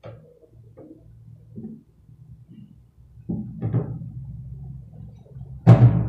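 Plastering tools being handled: a few soft knocks and scrapes, louder a little past halfway, then a single sharp knock near the end.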